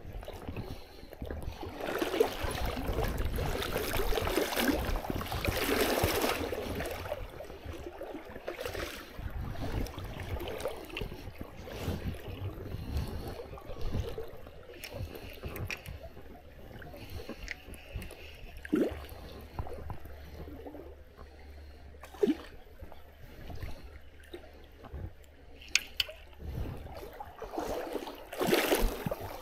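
River water splashing and gurgling, louder in surges a few seconds in and again near the end, with scattered small knocks.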